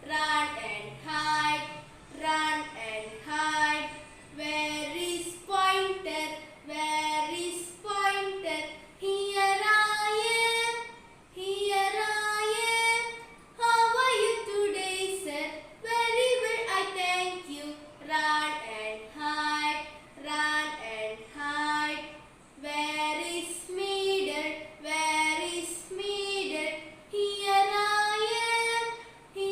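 A girl singing a song solo, one clear voice in phrases of a second or two with short breaths between.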